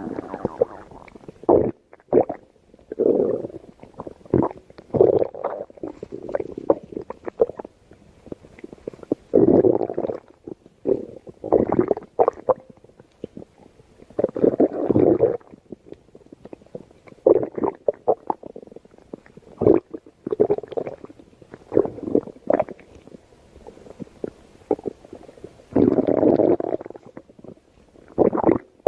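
Stomach growling: gurgling rumbles in irregular bursts every second or two, broken by short crackles. The longest and loudest gurgles come about 9, 15 and 26 seconds in.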